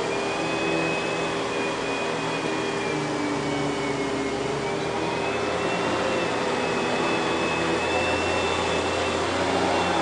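Kenmore Progressive canister vacuum cleaner (model 116.20712000) running steadily while its power nozzle is pushed back and forth over carpet: a constant rushing hum with a high whine that wavers slightly in pitch. Its early Panasonic-built motor gives the odd sound peculiar to this model.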